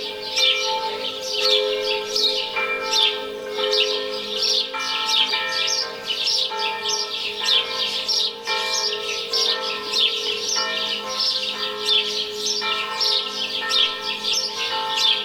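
Small woodland birds chirping and twittering constantly, over church bells ringing with sustained tones that change every second or so.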